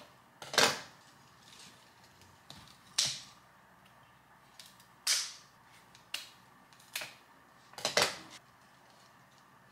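Scissors snipping through fresh flower stems: about half a dozen sharp cuts, one every second or two.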